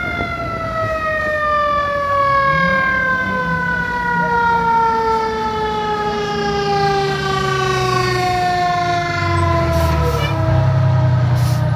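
Fire truck siren giving a short rising whoop, then slowly falling in pitch as it winds down, with the truck's engine running underneath and getting louder near the end.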